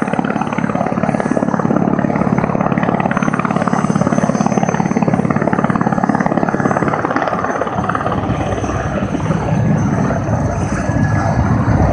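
Aérospatiale Lama helicopter running on the ground with its turboshaft engine and rotors turning, a loud, rapid, even beating. About seven seconds in, the sound deepens and then grows louder toward the end as power comes up for lift-off.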